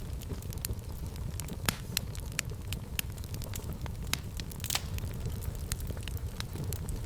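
Fireplace fire burning: a steady low rumble of flame with frequent, irregular sharp crackles and pops.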